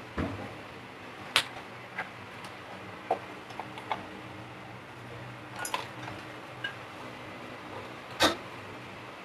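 Scattered light clicks and taps, about eight in all with the sharpest near the start and near the end, from multimeter probes and amplifier parts being handled during testing, over a faint steady low hum.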